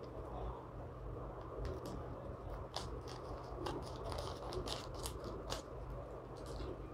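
Plastic zip-pouch packet of cotton balls being handled, giving faint crinkles and scattered light clicks over a low steady hum.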